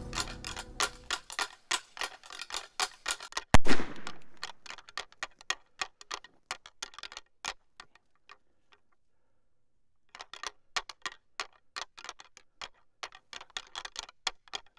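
A single shot from a Smith & Wesson Performance Center .500 Magnum revolver about three and a half seconds in, sharp and loud with a short echoing tail. A quick ticking runs under it and drops out for a couple of seconds near the middle.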